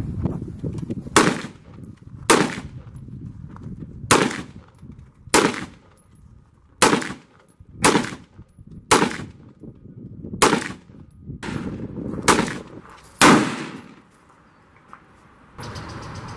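Single shots from an AR-15-style rifle, about a dozen fired one at a time at uneven intervals of roughly a second, stopping about thirteen and a half seconds in.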